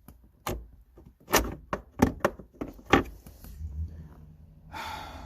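Several sharp clicks and knocks of a car's gear shifter assembly being handled and worked at by hand to free a spring-loaded part, followed near the end by a brief rustling hiss.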